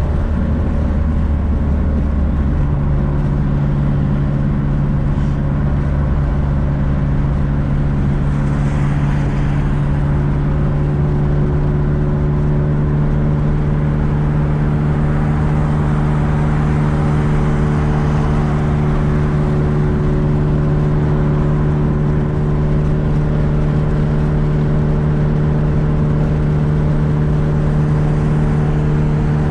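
Turbocharged Nissan S14's engine pulling the car at a steady cruise, heard from inside the car. The pitch eases down in the first couple of seconds and then holds level, with road noise throughout.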